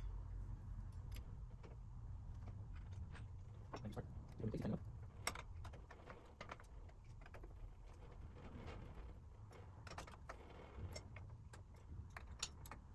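Faint, scattered light metallic clicks and taps of small chromed hex screws being fitted and tightened into the metal frame of a drone battery cooler, over a steady low hum.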